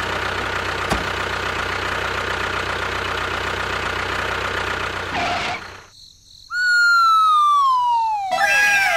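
A steady engine-like running drone that stops about five and a half seconds in. After a brief gap comes one long whistle-like tone falling slowly in pitch, joined near the end by a second set of falling tones.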